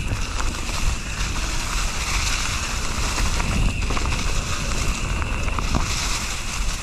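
Wind rushing over an action-camera microphone during a mountain bike ride, with steady tyre noise and scattered small clicks and rattles from the bike over the trail.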